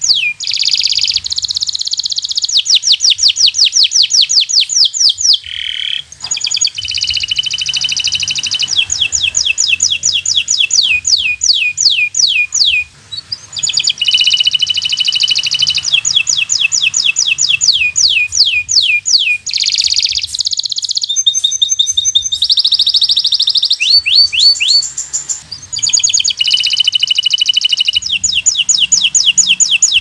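Local Indonesian canary singing continuously: long runs of fast repeated falling notes, about four a second, alternating with buzzing rolls. The song breaks briefly about six and thirteen seconds in.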